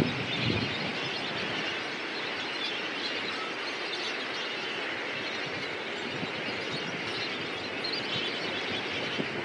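Steady massed calling of a huge flamingo flock, heard as a continuous high, chattering din. A louder low rumble fades away within the first second.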